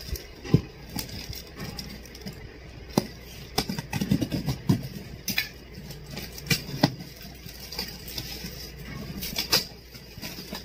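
A knife scraping and slicing through packing tape on a cardboard box, then hands tearing the tape and working the cardboard flaps open: irregular scrapes, taps and rustles.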